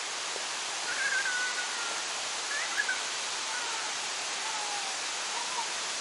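Steady rush of cascading waterfall water, with a few faint whistled bird calls over it.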